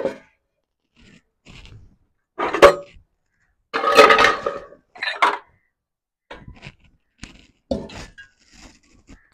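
Washed aluminium cooking pots clanking and clinking as they are handled and hung up on a pot stand and rack. The knocks come irregularly, with a sharp clank a little over two and a half seconds in and the loudest clatter about four seconds in.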